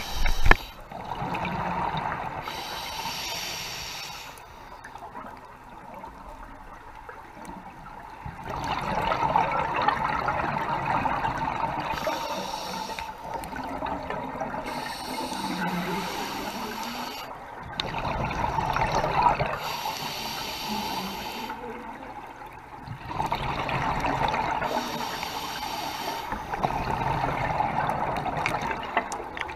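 Scuba regulator breathing underwater: several long surges of exhaled bubbles gurgling past the camera, with quieter stretches of inhalation between them. A sharp knock comes right at the start.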